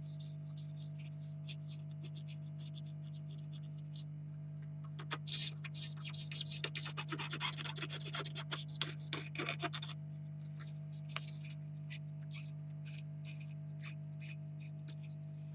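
Close scratching and light clicking of hands and small tools handling parts, dense and loudest from about five to ten seconds in, sparse ticks otherwise, over a steady low hum.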